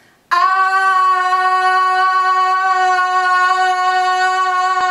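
A woman's voice holding one long, steady high note, starting a moment in and not wavering in pitch.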